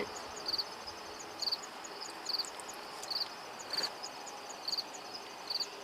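Cricket chirping steadily, a short high chirp a little more than once a second, with a faint click about four seconds in.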